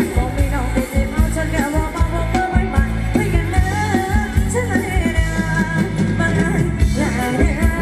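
Live band playing Thai ramwong dance music, with a singer over a steady, driving drum beat.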